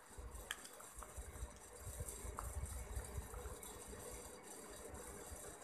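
A spoon stirring a thick, dark paste in a small plastic bowl. The sound is a faint, soft mushy scraping, with a few light clicks where the spoon knocks the bowl.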